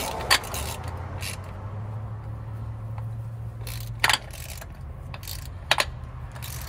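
A few separate metallic clicks and knocks of hand tools and parts being worked on the underside of the SUV during an oil change, over a steady low hum.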